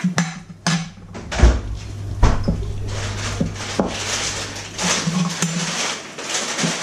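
Irregular knocks and scrapes of a utensil stirring cake batter in a mixing bowl, with two heavier thumps about a second and a half and two seconds in, over a low steady hum.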